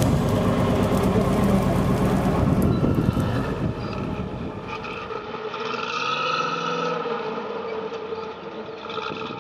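Trial truck engine running loud under load while climbing a steep slope; after a cut about five seconds in, a second trial truck's engine revs up and eases off as it crawls over mud.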